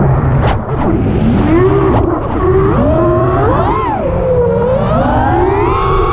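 Armattan Chameleon FPV quadcopter's Armattan Oomph 2206 2300 KV brushless motors and propellers whining. The pitch swoops up and down with the throttle: a quick rise and fall about four seconds in, then a long climb that drops off sharply at the end. A low rumble of wind runs under the whine.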